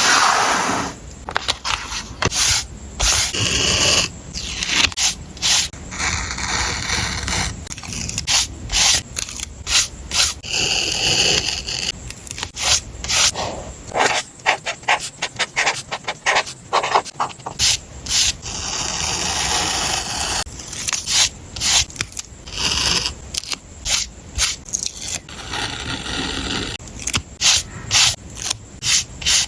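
Close-miked journal-collage sounds: paper and stickers being handled and rubbed, in a busy run of short scratchy strokes and rustles.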